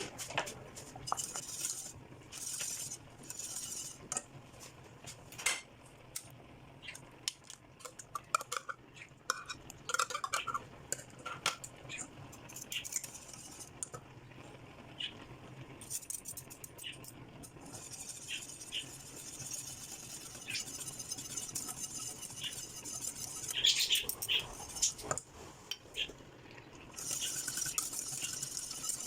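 A metal utensil clinking, knocking and scraping against cookware as food is stirred, many light irregular knocks. A steady hiss joins in from a little past the middle until near the end.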